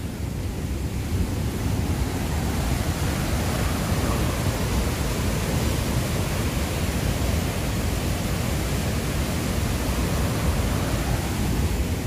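Huka Falls on the Waikato River: a steady, loud rush of powerful white water, with no breaks or changes.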